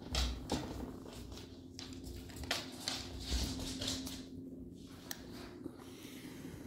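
Irregular rustling and shuffling as dogs and a person move about, with a few light clicks, over a steady low hum.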